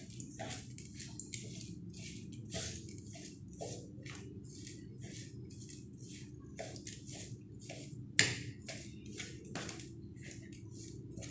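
Metal spoon stirring damp, freshly washed poha (flattened rice) in a bowl: a run of soft, irregular scrapes and clicks, with one sharper knock about eight seconds in.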